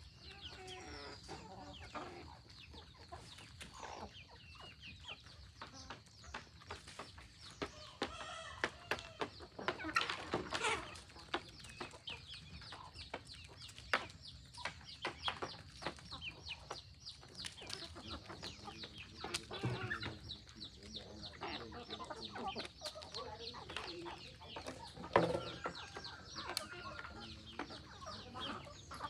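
A flock of free-range chickens clucking, with many short calls and scattered sharp clicks.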